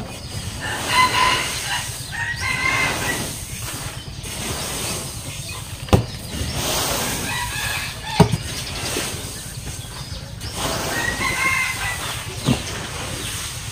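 A long-handled shovel scraping soaked seed rice out of a plastic barrel onto a tarp, with three sharp knocks about 6, 8 and 12 seconds in. Chickens cluck and crow in the background.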